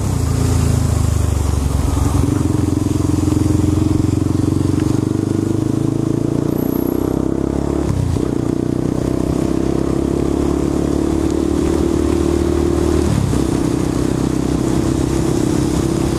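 Yamaha Fazer 250's single-cylinder engine pulling the bike up to speed, its note breaking briefly twice, about 8 and 13 seconds in, as it shifts up. There is a steady hiss of wind and tyres on the wet road underneath.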